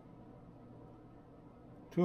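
Faint room tone with a low steady hum, and a man's voice starting right at the end.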